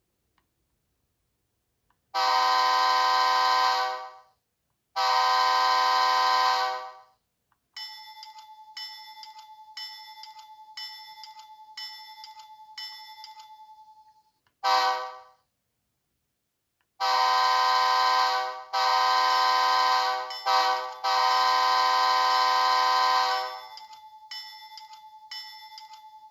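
Soundtraxx Tsunami 2 sound decoder in a model GE B23-7 locomotive playing a diesel air horn and bell through a small speaker. Two long horn blasts, then the bell ringing about once a second, one short toot, then the horn's long-long-short-long grade-crossing pattern, with the bell ringing again near the end.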